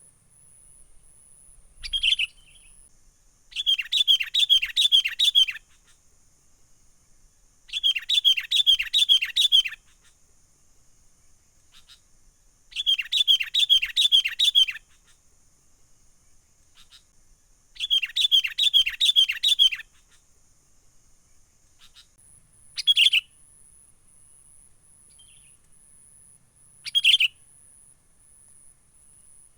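Sooty-headed bulbul (kutilang) giving its excited 'menggaruda' call, the kind played as a lure for wild bulbuls. It comes in four bouts of quick repeated notes, each about two seconds long, with single short notes in between, over a faint steady high hiss.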